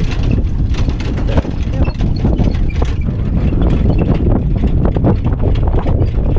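Horse-drawn driving carriage in motion: a steady low rumble of the wheels with many quick, irregular knocks and rattles of hooves and carriage, and wind buffeting the microphone.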